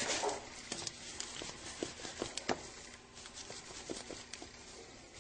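Faint, irregular soft clicks and taps at a pot of soup as chili powder is added, over a low steady hiss.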